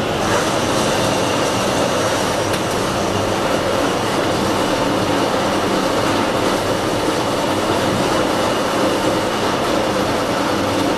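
Pipe threading machine running, its dies cutting threads on a metal pipe: a steady, loud mechanical din with a thin high whine over it.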